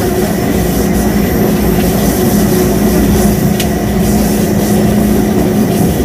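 CPTM Série 2000 electric multiple unit standing at the platform, its traction and electrical equipment giving a loud, steady hum that holds one pitch.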